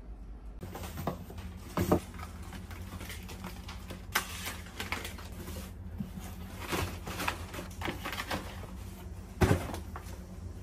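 Cardboard packaging being handled and sorted: boxes and flattened cartons rustling, scraping and knocking together, with a few louder knocks about 2, 4 and 9.5 seconds in.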